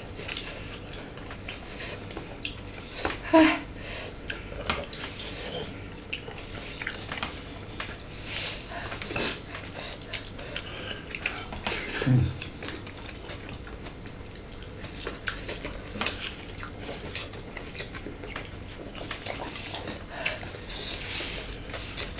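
Fingers mixing and scooping a wet salad on ceramic dishes: scattered small clicks and scrapes against the plate and bowl, with soft sounds of eating by hand.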